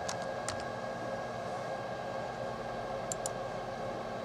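Steady fan hum with a few light keyboard clicks, two near the start and two more about three seconds in.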